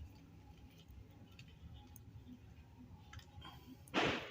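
Faint clicks and taps of a tripod's parts being handled and fitted, with one brief, louder rustling clatter near the end.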